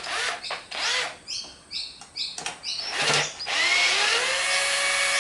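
Cordless power drill/driver undoing a hedge trimmer blade bolt: a few short bursts, then from about three and a half seconds in the motor spins up with a rising whine and runs at a steady pitch to the end. Small birds chirp faintly behind it.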